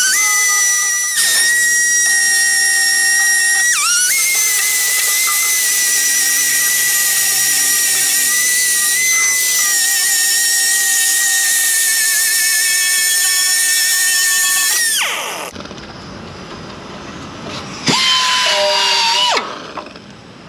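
Power tool spinning a lightly abrasive polishing wheel against an oil pan to scrub off silicone sealant: a loud, steady, high-pitched whine that dips briefly in pitch whenever the wheel bears harder on the work. It stops about fifteen seconds in, then gives one short, lower-pitched burst near the end.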